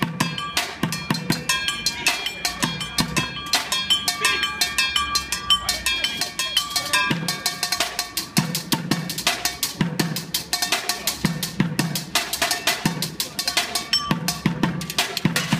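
Bucket drumming: drumsticks beating fast, dense rhythms on upturned plastic buckets, with deep hollow thuds about twice a second under sharp rapid hits, and some ringing strikes on metal pots.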